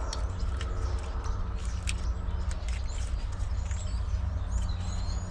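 Scattered light clicks and rattles of a diesel engine wiring harness and its plastic connectors being handled, over a steady low rumble and hum. Birds chirp briefly near the end.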